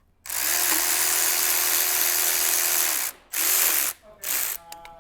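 Cordless power tool spinning, backing out the oil pan bolts. It runs in one long spin of about three seconds, whose pitch rises as it starts and falls as it stops, then two short spins.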